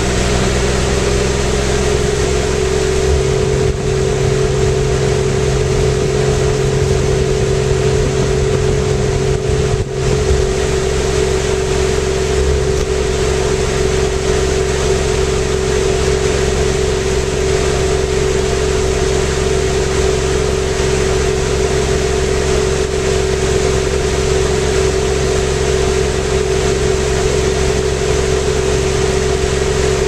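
Zanussi ZWF1421W washing machine running steadily, heard from inside its drum: a constant motor whine over a low hum that stays at one speed throughout.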